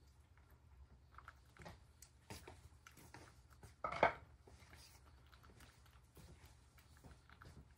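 A cat eating a treat from a ceramic bowl: faint, irregular chewing clicks, with one louder knock about four seconds in.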